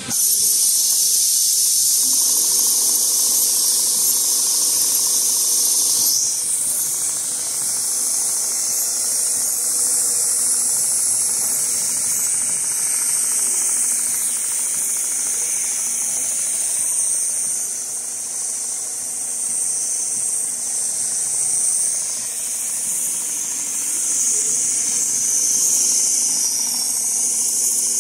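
CNC leather pattern sewing machine running, with a loud, steady hiss of compressed air that starts suddenly, over a faint steady hum from the machine.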